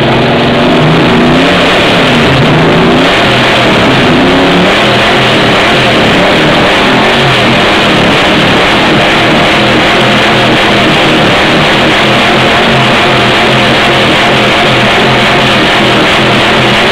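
Ford Maverick GT's V8 engine being revved hard, very loud. The pitch rises and falls with the throttle blips in the first few seconds, then stays at a steady high roar.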